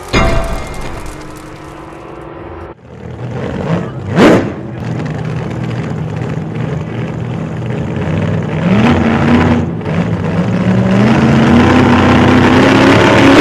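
A car engine running and accelerating, its pitch stepping up twice and growing louder toward the end, after a brief rushing sound about four seconds in.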